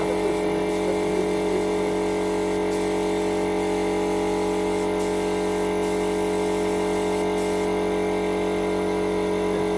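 Steady hum of spray-painting equipment, an air compressor or extraction fan, with an even hiss of air from the paint spray gun, unchanging throughout.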